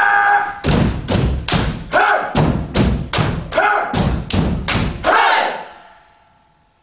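A stage ensemble thumping out a rhythm in unison, about a dozen loud thumps at roughly two and a half a second, with voices calling out on some beats. The thumps stop about five seconds in, after a held voice-like note at the very start.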